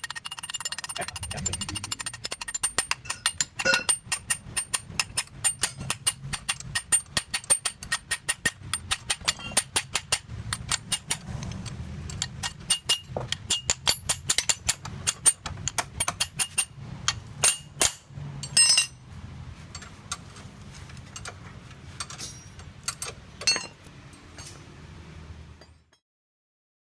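Rapid metallic tapping, several sharp ringing strikes a second, thinning out after about 19 seconds and stopping abruptly near the end.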